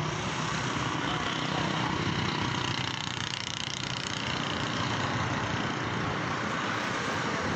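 Steady road traffic noise, motor vehicles running past, with no sudden events.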